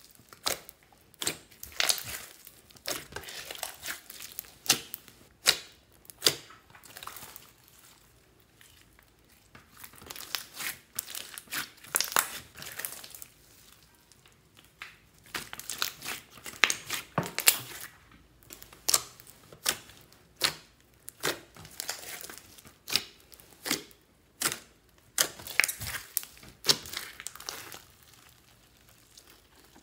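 Hands squeezing and stretching a large mass of sticky mixed slime, making irregular crackling clicks and pops, with a few brief quieter pauses between handfuls.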